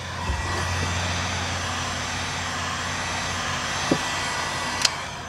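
Handheld electric heat gun running steadily, its fan blowing hot air to shrink heat-shrink tubing over a soldered wire splice. It cuts off at the very end.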